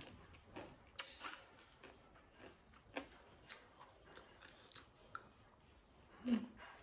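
A person chewing food with the mouth closed, heard close up as soft irregular clicks, with a louder mouth sound near the end.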